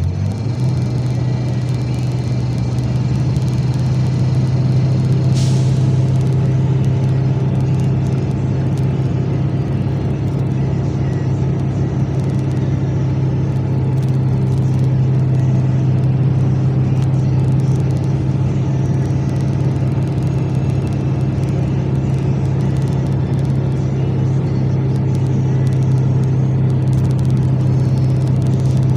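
Motor vehicle engine and road noise: a steady low drone that holds one pitch throughout.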